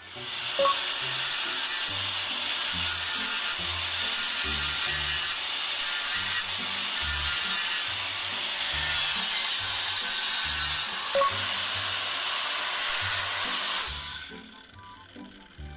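Power grinder working down metal on a monkey wrench being repaired by welding: a loud, steady, rough grinding hiss that dies away about fourteen seconds in.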